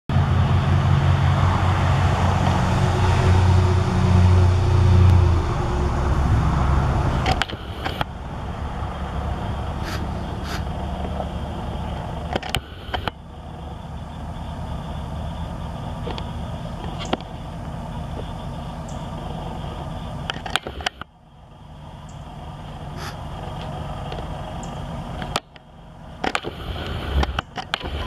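A motor vehicle's engine hums loudly and low for the first seven seconds or so, then gives way to a steadier, quieter rumble of traffic. A few sharp clicks come through it, and the sound drops off abruptly several times.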